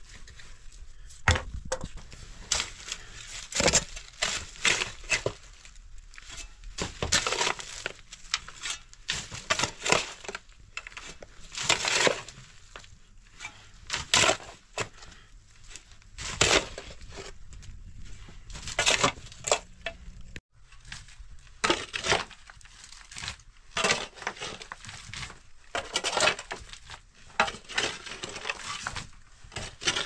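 Hand digging in stony dirt with a pick and a shovel: irregular strikes and gritty scrapes, with small stones rattling and crunching, roughly one every second.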